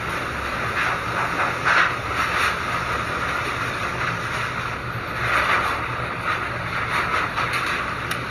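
Typhoon wind gusting: a steady rushing noise that swells in gusts, about two seconds in and again near the middle, over a low rumble.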